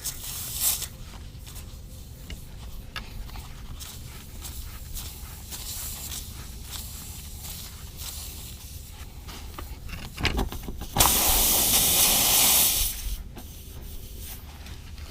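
Reamer tool being worked into a nail puncture in a tubeless tire, with faint small clicks, then a loud hiss of air escaping through the hole that starts about eleven seconds in, lasts about two seconds and cuts off suddenly.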